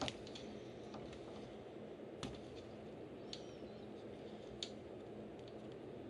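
Three faint, short clicks of small plastic parts being handled: fingers working the insulating boots over the spade connectors on a rocker power switch. Underneath is quiet, steady room noise.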